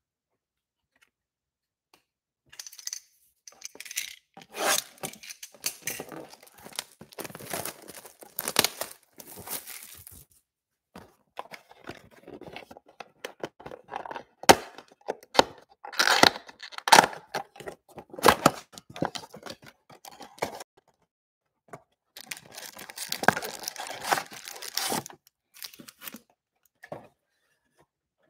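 Shrink wrap being torn off a cardboard trading-card box and the box opened, then foil card packs crinkling as they are taken out and stacked: irregular rustling and tearing with sharp crackles, starting about two seconds in.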